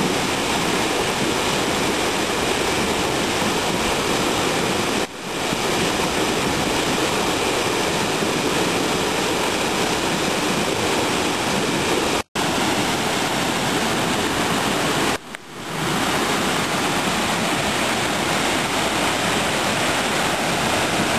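Waterfall plunging into a pool: a steady, even rush of falling water, broken by three brief dips where the sound drops out and comes back, about five, twelve and fifteen seconds in.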